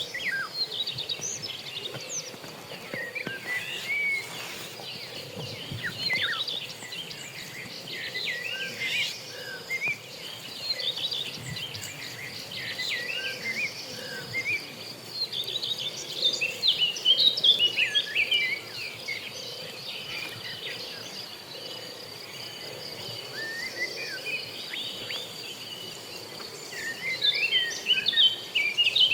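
Small birds chirping and twittering in quick, scattered calls, over a steady high insect buzz.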